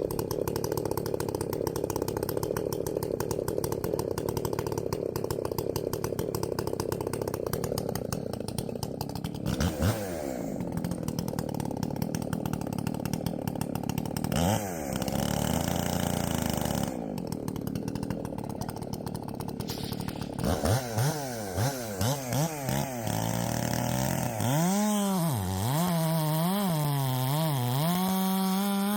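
Small gasoline engine running hard and steadily for several seconds, then revving up and down over and over with its pitch swinging, as a saw engine does when throttled between cuts.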